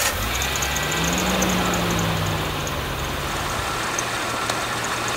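Jeep Cherokee XJ's 4.0-litre straight-six running. Its speed rises briefly about a second in, then eases back to a steady idle.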